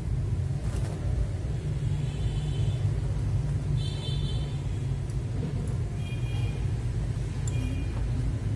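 A steady low rumble of background noise, with a few faint small clicks and brief high-pitched chirps.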